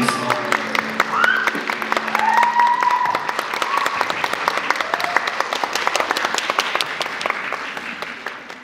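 Audience applauding, with a few high shouts over the clapping, fading out near the end.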